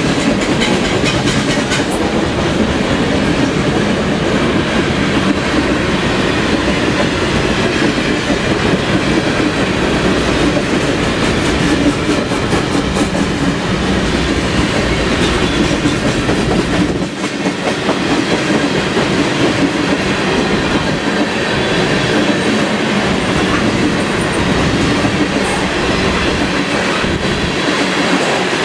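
A long CN freight train's cars rolling steadily past: autoracks, tank cars and covered hoppers, their steel wheels running on the rails.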